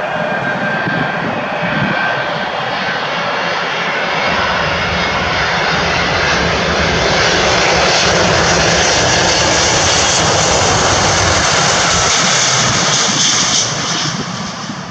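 A KLM Boeing 777-200ER's twin GE90 jet engines on final approach, a steady rushing jet noise that grows louder as the airliner comes in low over the runway threshold. The noise eases off sharply just before touchdown near the end.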